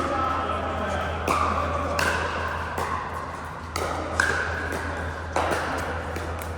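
Pickleball paddles striking a plastic ball in a rally: about four sharp pocks, irregularly spaced, each with a short ringing tail, over a steady low hum.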